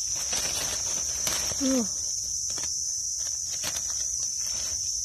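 Insects droning steadily at a high pitch, with dry leaf litter rustling as a hand searches the forest floor. A short falling call about a second and a half in is the loudest moment.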